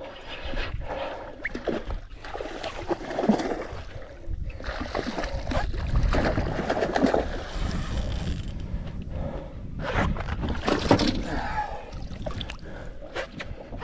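Water splashing and sloshing against a small fishing boat as a hooked mackerel tuna thrashes at the surface and is brought aboard, with a low rumble from wind on the microphone.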